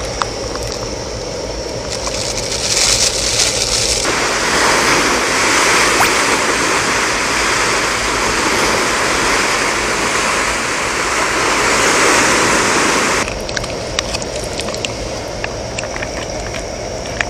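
Steady rushing of sea surf. It grows louder about four seconds in and falls back again near the end, with light clicks and rustles in the quieter stretches at either end.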